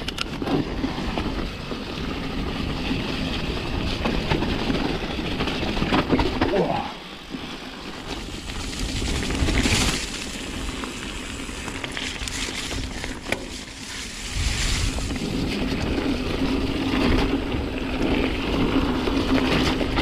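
Mountain bike descending a muddy, rough forest trail: tyres rolling over mud, leaves and gravel, and the bike rattling over bumps, with a steady rumble of riding noise. A low steady hum joins in over the last few seconds.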